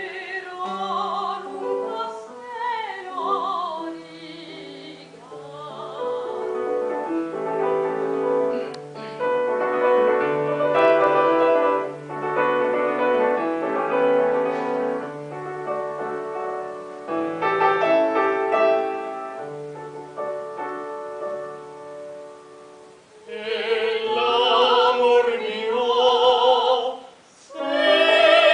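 Classical singing with piano accompaniment. A sung phrase with wide vibrato gives way to a piano passage of about eighteen seconds, and the voice comes back in strongly near the end.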